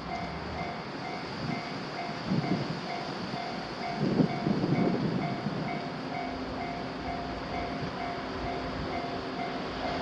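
Japanese railroad crossing's electronic warning bell ringing steadily at about two strokes a second as a train passes. The train is loudest between about two and six seconds in, followed by a steady low hum.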